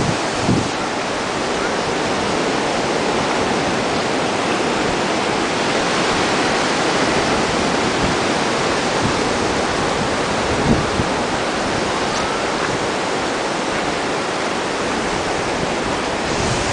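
Steady wash of surf breaking on the beach, with one brief knock about two-thirds of the way through.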